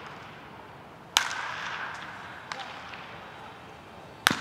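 Two loud, sharp cracks of a baseball bat hitting pitched balls, about three seconds apart, each ringing on in the echo of an indoor practice dome, with fainter cracks of other hits between.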